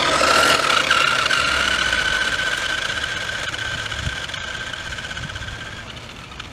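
Toy remote-control car's small electric motor and gears whining steadily at a high pitch as it drives, loudest at the start and fading gradually.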